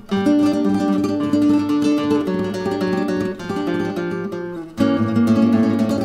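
Solo flamenco guitar, nylon-strung, playing a flowing line of plucked notes. After a short break near the end it comes back louder, with deeper bass notes.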